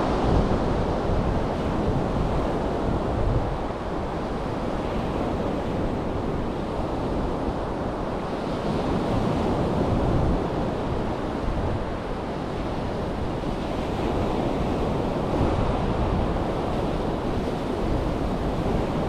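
Rough surf breaking and washing up a sandy beach, a steady rush of waves that swells and eases, with wind buffeting the microphone.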